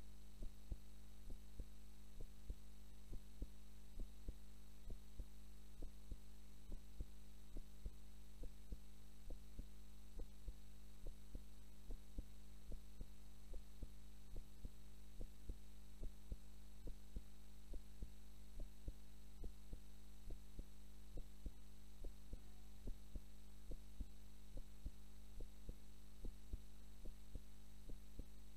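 A woman's heartbeat picked up at the chest while she sleeps: slow, regular lub-dub pairs of soft low thumps, over a steady electrical hum.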